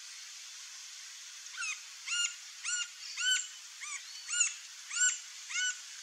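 Green-barred woodpecker calling: a series of eight clear notes, each rising and falling in pitch, about two a second, starting about a second and a half in.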